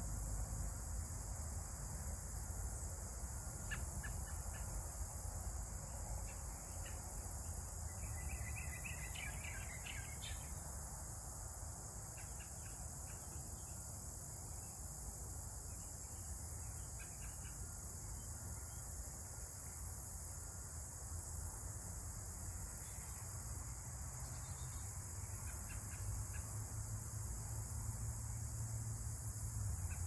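Steady high-pitched insect chorus, with a few short bird chirps, the clearest about eight to ten seconds in, over a low rumble.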